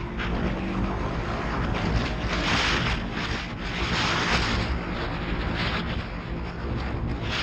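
Strong wind buffeting the microphone in gusts, over the engine of a Polaris RZR 900 side-by-side running as it drives across the sand dunes. The wind swells loudest a few seconds in.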